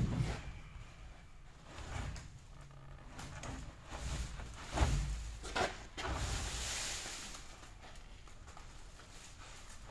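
Thick rubber hydraulic hoses being handled and pushed along a steel sweeper housing: a few dull knocks and scrapes, the loudest about five seconds in, then a stretch of rustling and rubbing for a couple of seconds.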